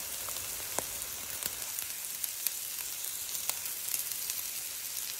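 Crumbled sausage frying in a non-stick frying pan: a steady sizzling hiss with scattered small pops and crackles.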